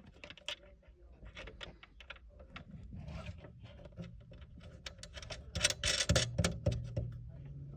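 Small metal clicks and scratches of a nut being fitted onto a bolt by hand under a recliner's base. The clicking turns busier and louder past the middle, and a low steady hum joins near the end.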